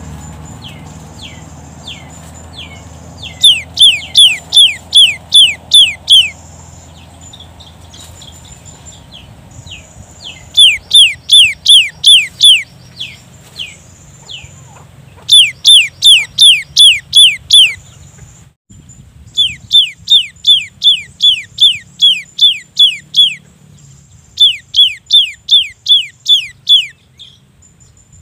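Cinereous tit singing its repeated 'wucit-wucit' song: five bouts of rapid, loud down-slurred whistled notes, about two to three a second, each bout lasting a few seconds with short pauses and a few softer notes between.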